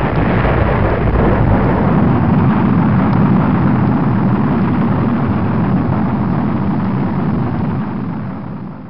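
Rocket launch rumble: a loud, steady, deep noise that fades away over the last second or so.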